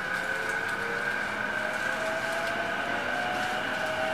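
JR E233 series 8000 electric train running, heard from on board: its traction motors whine in several thin tones that slowly rise in pitch as the train gathers speed, over a steady high tone and the even rumble of the running gear.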